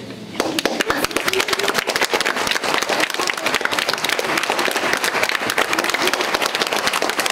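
Audience applause with the cast on stage clapping along, many hands clapping densely. It starts about half a second in and keeps up steadily.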